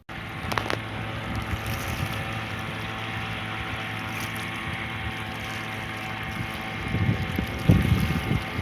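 Veterok-12 two-stroke outboard motor running steadily and evenly, without sneezing or backfiring. Wind buffets the microphone near the end.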